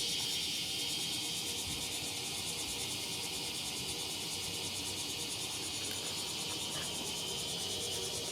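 A steady, high-pitched chorus of insects with a fast pulsing trill.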